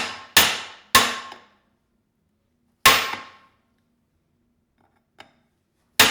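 Hammer blows on a metal punch, driving a part out of a classic Mini 1275 A+ gearbox. Each blow is a ringing clang: two quick strikes, another about two seconds later, a faint tap, then one more strike near the end.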